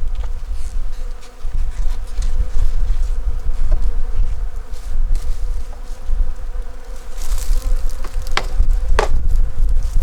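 Honeybees buzzing in a steady hum around an open hive. Two sharp clicks come near the end.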